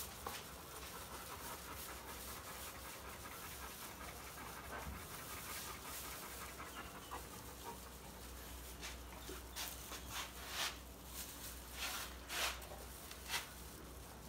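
A large dog panting. Several short hissing puffs come from a squeeze bottle of flea powder in the last few seconds, louder than the panting.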